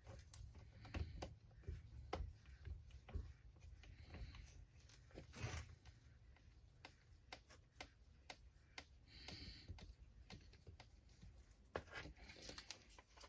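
Faint, irregular clicks and taps of small plastic and metal RC truck parts and screws being handled and fitted, with a few brief rustles.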